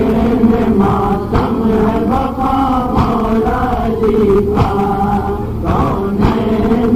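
A nauha, a Shia lament, chanted by men's voices, with sharp slaps of matam (hands beating on chests) falling at intervals through the chant.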